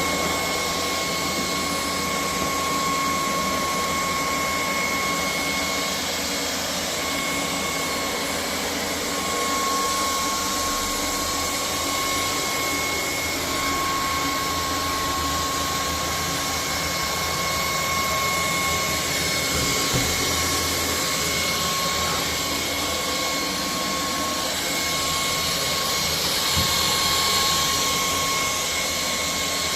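Cordless stick vacuum cleaner running steadily, a high motor whine over the rush of air.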